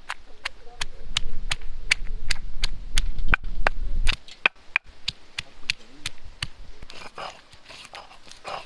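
Stone roller rocked and pressed over a flat stone grinding slab, crushing green chillies: sharp stone-on-stone knocks about three times a second over a low grinding rumble. The knocks stop about two-thirds of the way through, leaving fainter sounds.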